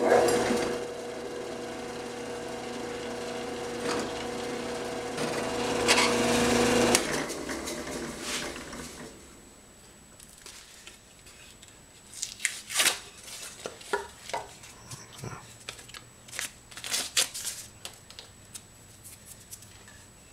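Drill press motor running as a twist drill bores through a thin stainless steel strip sandwiched between two wooden boards, getting louder just before it is switched off about seven seconds in and winds down. After that, scattered short knocks and scrapes of the boards being handled on the drill press table.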